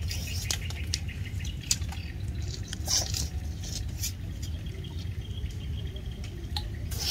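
Quiet pondside ambience: a steady low rumble with scattered light clicks and ticks, a sharper tick about three seconds in, and a louder knock right at the end.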